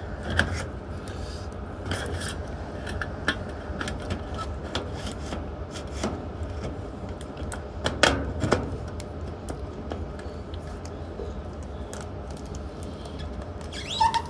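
Furnace blower fan running steadily, with scattered clicks, rubs and knocks from handling at the furnace; the loudest knocks come about eight seconds in and again near the end.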